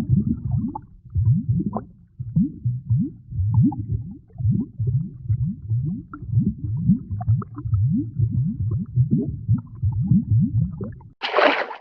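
Cartoon sound effect of deep underwater bubbling: a dense stream of low bubbles, each a short rising blip, several a second. About eleven seconds in it cuts to a short splash of water.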